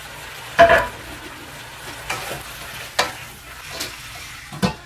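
Beef cubes sizzling as they brown in hot oil in a wok. A few short knocks and scrapes cut through, the loudest just under a second in.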